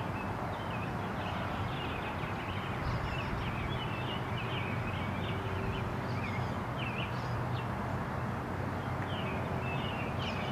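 Outdoor ambience: small birds chirping, short quick calls repeating throughout, over a steady low background hum.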